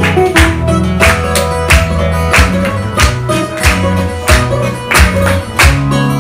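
Portuguese guitar and classical guitar playing a lively fado introduction, with loud hand claps keeping time about every two-thirds of a second.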